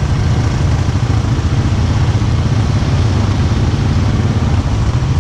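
ATV engine idling steadily: a low, even hum with no revving.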